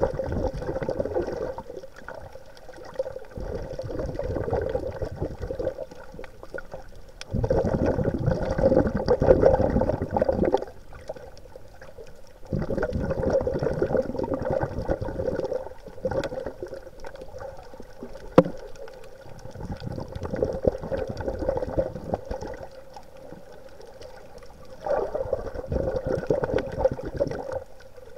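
Muffled water noise, probably as heard by an underwater camera on the reef. It surges in bursts of two to three seconds every few seconds with quieter gaps between, and there is one sharp click about eighteen seconds in.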